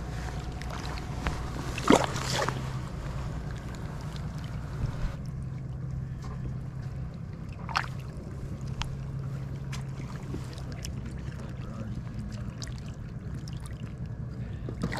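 Steady low drone of a distant motorboat engine on the lake, with water sloshing at the shoreline. There is a sharp splash about two seconds in and a smaller one near eight seconds, from a striped bass held in the shallows.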